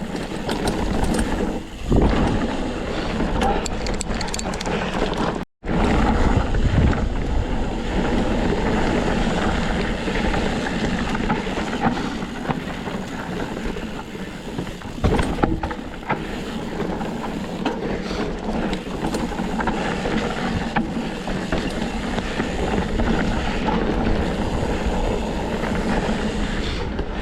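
Riding noise from a Canfield Nimble 9 hardtail mountain bike on rough single track: plus-size tyres rolling and bumping over the trail, with wind buffeting the microphone. The sound cuts out for a moment about five seconds in.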